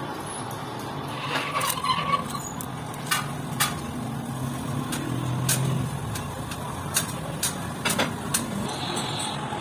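Steel bolts and threaded inserts clinking against each other and against a metal tin as gloved hands rummage through it. The sharp metallic clinks come at irregular moments, starting about a second in, over a steady low background rumble.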